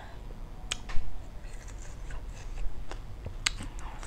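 Close-up eating sounds: a mouthful of spicy shrimp salad being chewed, with scattered sharp clicks and smacks, the loudest about a second in.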